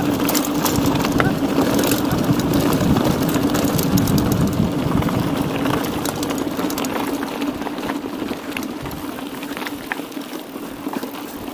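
Mountain bike under way, with tyre rolling noise and wind on the action camera's microphone. A steady hum runs under scattered clicks and rattles, fading gradually.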